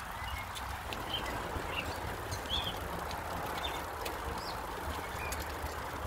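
Bicycle rolling on concrete with a steady low rumble of tyres and wind on the microphone, while small birds chirp briefly about once a second.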